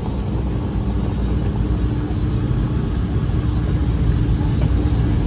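SpeedSTR race car's engine running after a push start, the car rolling off over gravel under its own power; a steady low drone that grows slightly louder.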